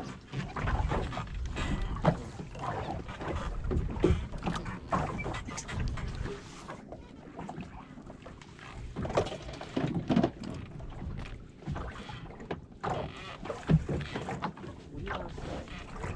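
Water slapping against the hull of a pirogue, a small open fishing boat, with wind on the microphone and irregular knocks, the sharpest about 2, 4 and 14 seconds in.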